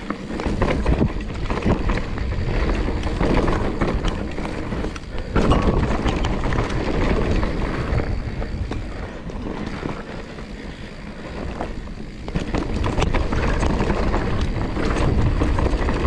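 Mountain bike riding fast down a dirt trail: tyres rolling over dirt and bumps while the bike rattles, mixed with wind on the microphone. It gets louder about five seconds in and again in the last few seconds.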